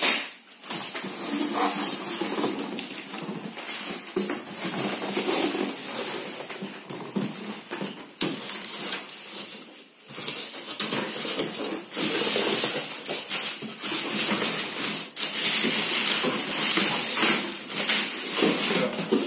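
Packaging handled during an unboxing: plastic wrapping rustling and crinkling against cardboard and polystyrene, with irregular scrapes and light knocks, easing off briefly about ten seconds in.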